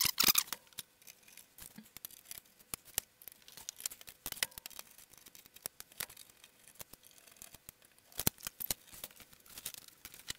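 Scattered small clicks, taps and scrapes of a screwdriver taking out case screws and of hands shifting and lifting off the sheet-metal cover of a Sony CHC-CL5MD mini hi-fi.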